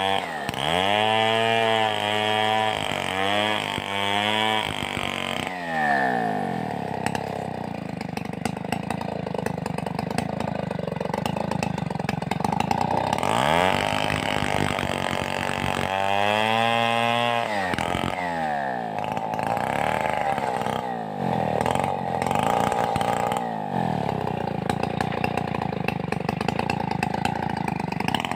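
Stihl 038 two-stroke chainsaw running hard, its revs dipping and recovering several times in quick succession and then dropping to a lower, steadier speed. This happens twice.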